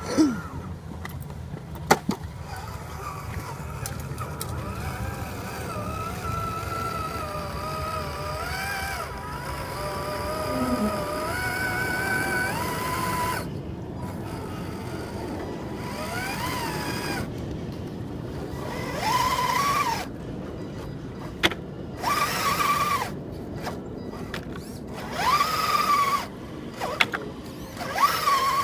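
Electric motor and gear drive of an RC4WD Trail Finder 2 scale RC crawler whining, its pitch wavering and gliding with the throttle, then coming in four short bursts that rise, hold and drop off as the truck strains, hung up in the mud. Two sharp clicks sound near the start.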